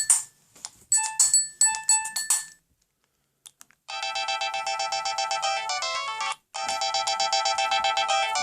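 Siemens SL55 mobile phone playing its original ringtones. One ringtone's short phrases of sharp electronic notes end about two and a half seconds in. After a pause with a couple of faint clicks, another ringtone starts with a fast run of notes, breaks off briefly and starts again.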